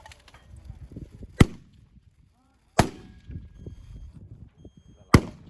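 Three rifle shots from a 6mm BR Norma bolt-action precision rifle fitted with a muzzle brake, about a second and a half and then two and a half seconds apart, each with a short ring after it.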